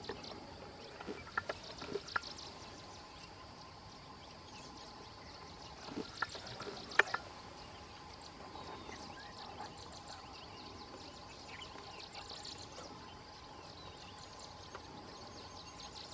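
Quiet outdoor background: a steady hiss with a faint high drone, broken by a few sharp clicks, the loudest about seven seconds in.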